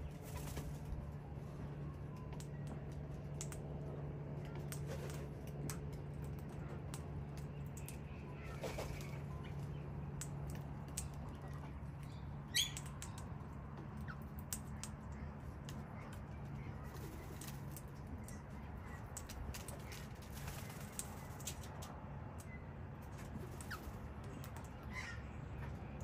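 Australian king parrots moving about: scattered sharp clicks and taps with wing flutters, over a steady low hum. One louder click sounds about halfway through.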